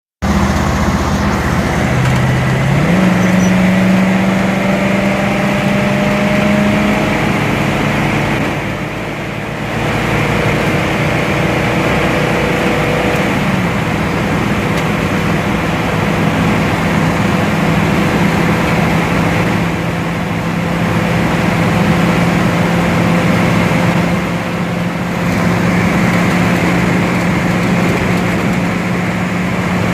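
1987 Chevy's engine under full throttle. The engine note jumps up about two seconds in and climbs slowly, then drops to a lower, steady note about halfway through, as after an upshift.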